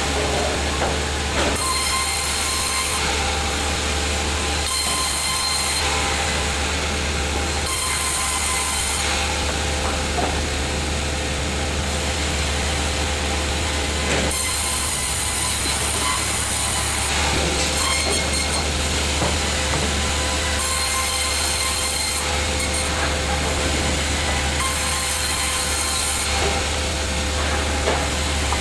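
Sawmill saw running steadily and cutting timber, a constant mechanical hum with a high hiss that comes and goes every second or two.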